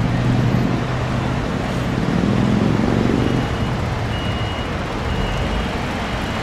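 Motorway traffic noise with a heavy truck's engine running. From about halfway through, a short high warning beep repeats roughly once a second.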